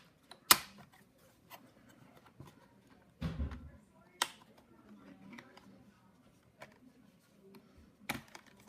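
Scattered sharp clicks and light taps of a screwdriver and small screws against the plastic bottom case of an HP laptop as it is taken apart, with one dull thump a little after 3 seconds.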